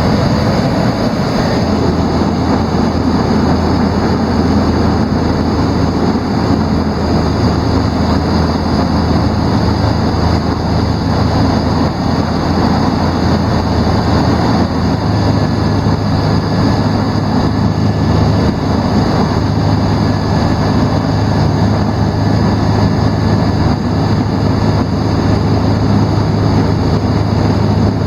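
Small propeller plane's engine running steadily with a loud, even drone; its low hum steps up slightly in pitch about halfway through.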